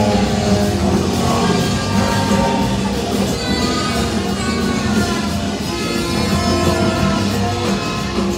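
Live rock band playing, with electric guitar to the fore over the full band; the guitar holds sustained, gliding notes.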